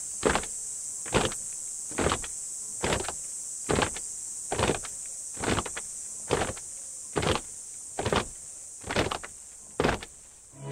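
Evenly spaced short swishing crunches, a little more than one a second, over a steady high-pitched hiss; the last crunch comes near the end.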